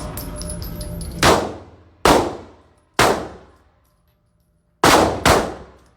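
Five gunshots fired one at a time at a shooting range, each with a ringing echo tail, the last two in quick succession. A steady noise runs under the first second before the first shot.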